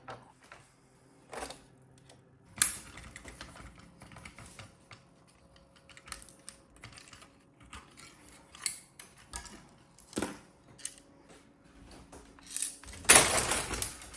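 Irregular light clicks and clatter of small hard objects, with a loud burst of noise lasting about a second near the end.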